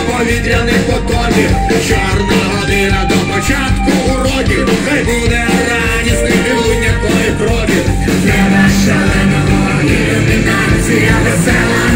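Live rock band with a brass section playing loudly, with a male lead vocal over guitar, keyboard, drums and horns.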